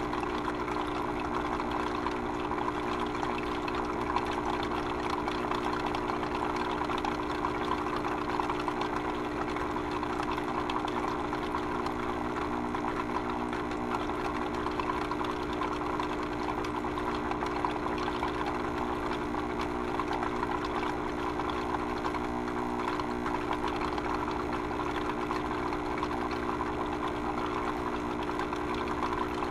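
Liquid running steadily with a constant low hum beneath it, unchanging throughout.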